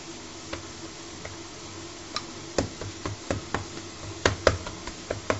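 Wooden rolling pin knocking against a granite countertop as laminated dough is rolled out: about a dozen sharp, irregular knocks starting about two seconds in, the loudest near the end.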